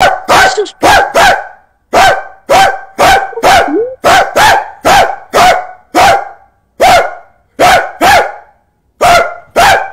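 A man barking loudly like a dog: about twenty short barks, many in quick pairs, each falling in pitch.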